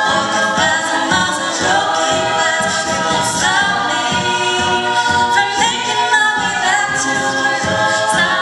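A cappella group singing live: a female lead voice into a microphone over a mixed choir of backing voices, with no instruments.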